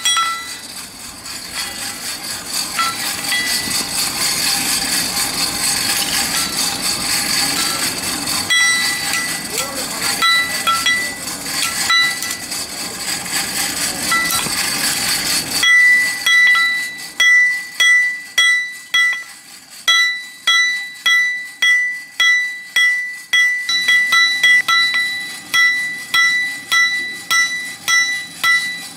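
Hand hammer striking a hot billhook blade on a steel anvil, each blow ringing. For the first half a steady rushing noise, the forge's air blower feeding the charcoal fire, runs under the blows and stops suddenly about halfway. After that the ringing strikes go on at about two a second.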